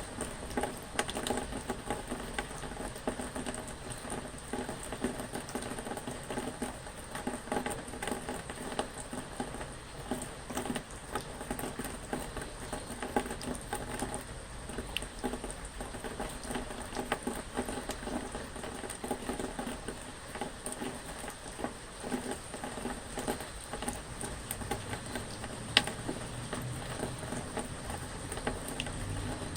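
Rain pattering steadily, a dense stream of small drop ticks, with one sharper, louder tick near the end.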